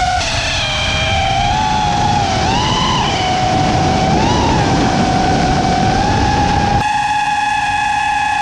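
FPV quadcopter's brushless motors whining at a high, steady pitch over the rush of wind from the flight, the pitch rising briefly twice with bursts of throttle. About seven seconds in the wind rush drops away and the whine holds level.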